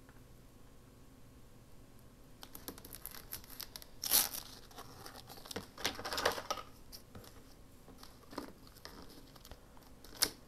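Paper being handled and torn: rustling and crinkling in a string of short bursts that starts a couple of seconds in.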